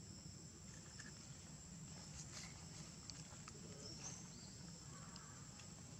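Faint outdoor ambience: a steady high-pitched insect drone over a low rumble, with a few soft ticks and rustles and one brief faint high chirp about four seconds in.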